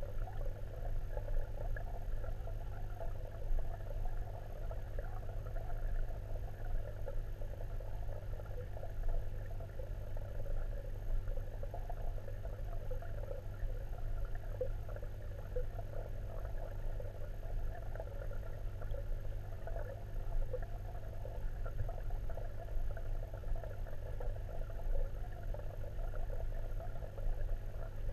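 Underwater pond ambience heard through a submerged camera: a steady low hum under a constant fine crackling, with no distinct single events.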